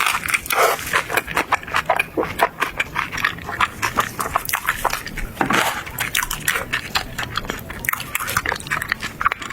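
Close-miked eating sounds: rapid wet chewing and mouth smacking with crunchy bites of food, a dense run of clicks and squelches.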